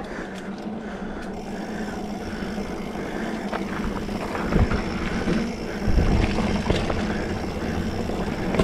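A 2020 Specialized Fuse 27.5+ mountain bike rolling along a dirt trail: steady tyre and drivetrain rolling noise, with two heavier low thuds about four and a half and six seconds in as the bike goes over bumps.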